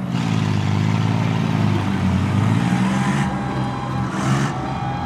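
Combine harvester engines running and revving, their pitch rising and falling as the combines maneuver in a derby arena, with a couple of short bursts of hissing noise a little past halfway.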